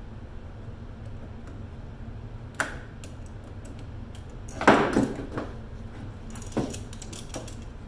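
Metallic clicks and clatter of duplex outlets and a metal electrical box being handled and worked with a screwdriver on a workbench. There are a few sharp clacks, the loudest cluster about five seconds in, over a steady low hum.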